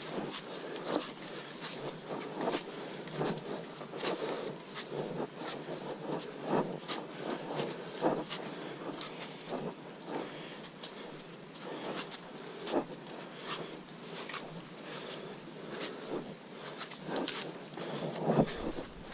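Footsteps of several hikers on a muddy, leaf-covered forest trail, irregular steps about one to two a second, over a steady buzz of forest insects.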